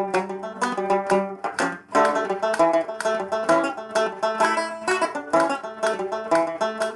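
Tenor banjo in GDAE tuning, picked with a plectrum, playing a traditional Irish jig as a quick, even stream of single notes, with a brief dip in loudness just before two seconds in.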